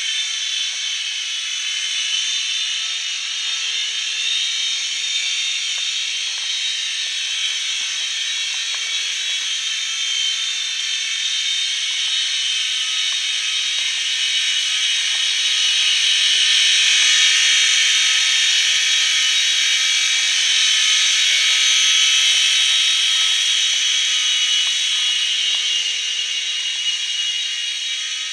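Graupner Fun Chinook, a small electric radio-controlled tandem-rotor helicopter, in flight: a steady high-pitched whine from its motors and rotors, growing somewhat louder through the middle and easing back near the end.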